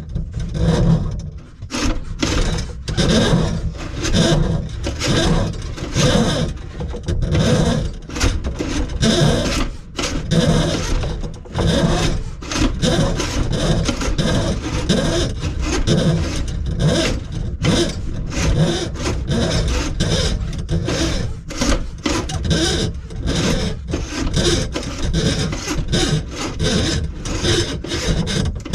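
Rapid, unbroken rasping and scraping strokes, sawing- or filing-like, from hand work on plastic PVC drain pipe under a kitchen sink.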